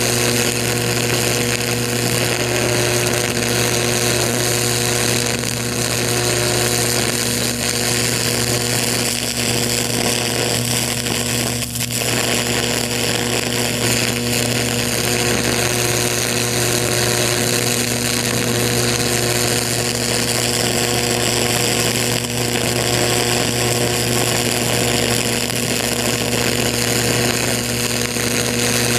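High-voltage electric arc burning into pumpkin skin: a steady buzzing hiss over a strong low electrical hum, faltering briefly about twelve seconds in.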